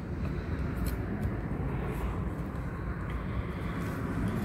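Steady low outdoor rumble, with a few faint clicks as a saw blade is pushed into a reciprocating saw's blade clamp.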